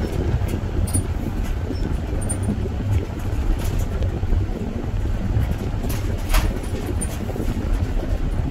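Car driving: a steady low rumble of road and engine noise, with a few faint ticks and knocks, the clearest about six seconds in.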